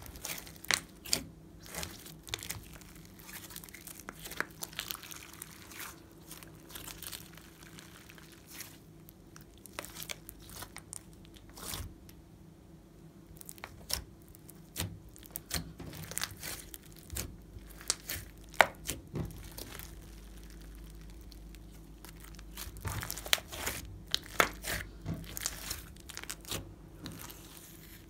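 Hands squeezing, kneading and pressing a lump of fluffy slime, giving many irregular sharp crackles and pops.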